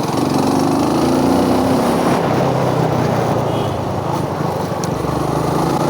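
Benelli TRK 251's single-cylinder engine running under way on a ride. Its note drops to a lower pitch about two seconds in.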